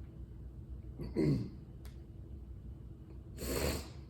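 A man's vocal noises in a pause: a short voiced sound falling in pitch about a second in, then a sharp, noisy breath near the end.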